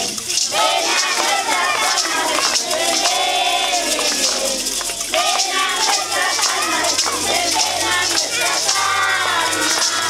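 A group of children and adults singing together, with maracas and hand rattles shaken along.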